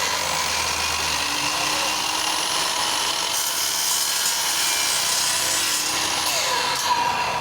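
KEN miter saw running at full speed, its blade cutting aluminium, with a harsher, brighter stretch in the middle as the blade bites in.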